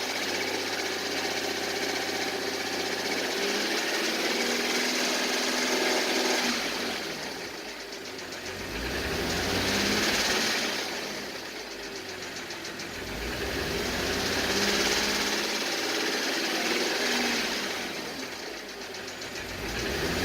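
Audi 3.0 TFSI supercharged V6 running with a knock, its sound swelling and fading every few seconds.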